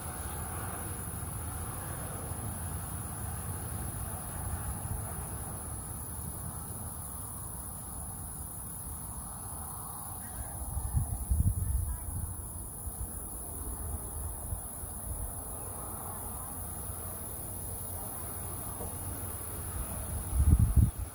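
Steady high-pitched insect chorus of crickets or similar insects, over a low rumble on the microphone that swells briefly about halfway through and again just before the end.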